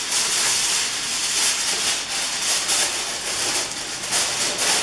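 Aluminium foil crinkling as a sheet is pulled from its box and spread and pressed over a roasting pan: a continuous crackling rustle.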